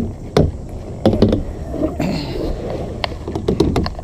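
Kayak on the water with a low rumbling wash and irregular clicks and knocks, as of hull, paddle and gear being handled.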